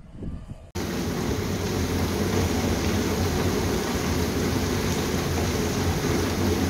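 Heavy rain pouring onto a concrete rooftop terrace: a steady, dense hiss with a low rumble underneath, starting abruptly under a second in.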